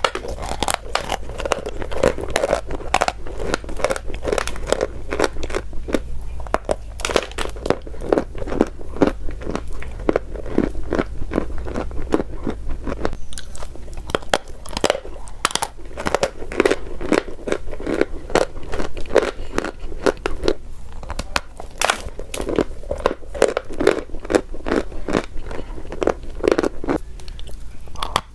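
Chalk being bitten and chewed close to the microphone: a dense, irregular run of crisp crunches, several a second.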